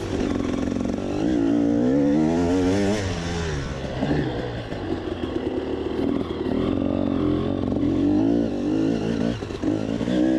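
KTM 300 EXC two-stroke enduro motorcycle engine revving hard, its pitch climbing and dropping again and again as the rider opens and closes the throttle through the corners.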